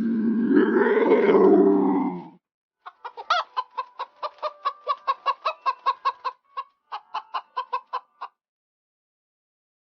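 A long, low animal call ends about two seconds in. A chicken then clucks rapidly, about four short clucks a second for around five seconds.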